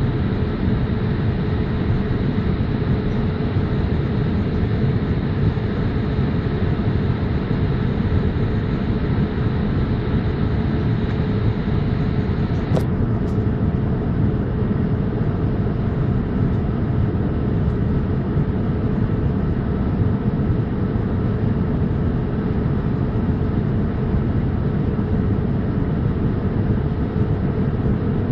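Steady cabin noise inside a Boeing 787-8 airliner: a loud, even low rumble of engines and airflow with a constant hum. About halfway through there is a short click, and a faint high whine stops with it.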